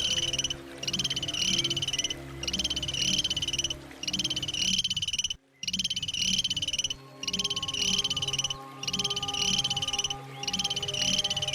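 An animal's rapid buzzing trill, high-pitched, repeated in calls of about a second each with short gaps between them, over a steady low hum. The sound cuts out briefly about five seconds in.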